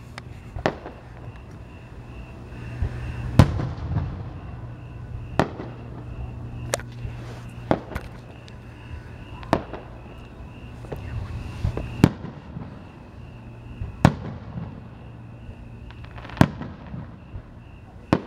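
Aerial firework shells bursting at a fireworks display: a sharp boom every one to two seconds, about ten in all.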